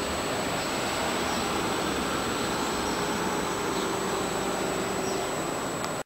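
Steady outdoor background roar of distant city noise, the even rumble of far-off traffic and engines heard from high up, cutting off abruptly near the end.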